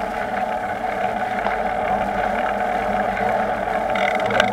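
Bicycle rolling along a paved street: a steady whir of tyres and drivetrain, with a single sharp click near the end.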